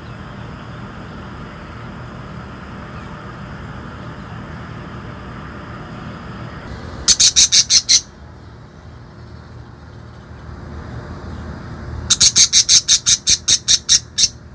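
A bird calling in two rapid runs of loud, harsh, high-pitched notes, about seven a second: a short run of about seven notes midway and a longer run of about fourteen near the end, over a steady low background rumble.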